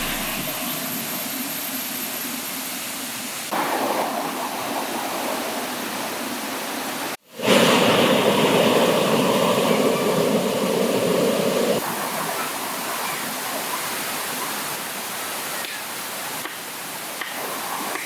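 River water rushing over rocks in a steady, even rush. There is a break about seven seconds in, after which the water is louder for a few seconds before settling back.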